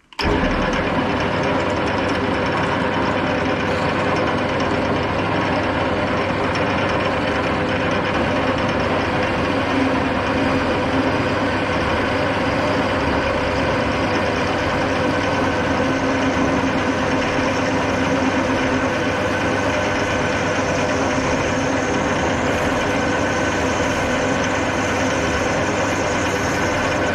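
Hafco AL-320G metal lathe switched on and running steadily, its chuck spinning at about 300 rpm with a constant motor-and-gearbox hum.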